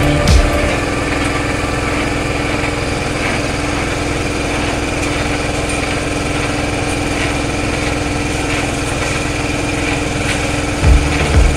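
Small engine of a portable drum concrete mixer running steadily with an even drone.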